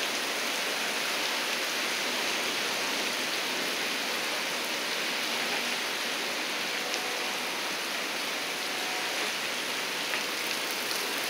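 Heavy rain pouring steadily onto a wet parking lot, a constant dense hiss with a few faint ticks of drops striking.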